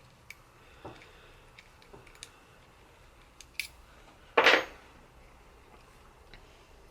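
Small metal parts and hand tools being handled while working at safety Torx screws on a clamp: scattered light clicks and taps, with one louder metallic clatter about four and a half seconds in.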